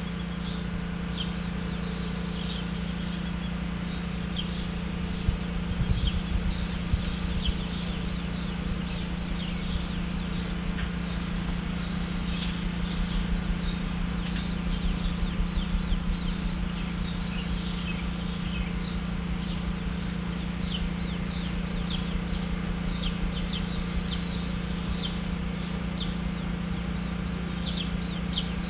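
Sparrows chirping repeatedly, many short, sharp chirps in quick succession, over a steady low hum. A few low bumps come about five to seven seconds in.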